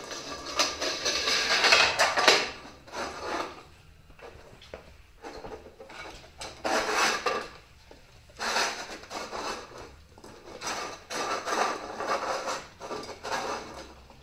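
Dalmatian puppies scrabbling on a wooden floor and nosing a food bowl about, in irregular bursts of scraping and clatter, loudest in the first two seconds.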